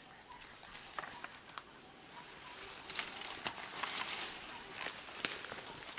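Dry leaves, twigs and brush rustling and crackling, with scattered small clicks and snaps, as a person works in dense undergrowth; busier from about three seconds in.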